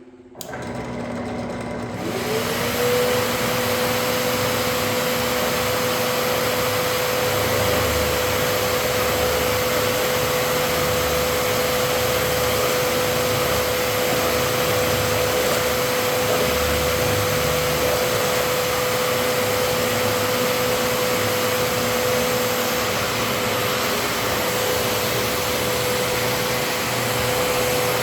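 Dust-collection vacuum switched on, its motor winding up over about two seconds to a steady whine over a rush of air, then running steadily.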